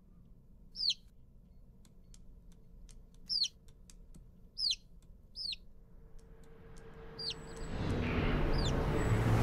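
Newly hatched chick peeping: about six short, high peeps that each fall in pitch, spaced out over several seconds, with faint ticks in between. From about two thirds of the way in, a rising rush of noise swells up underneath.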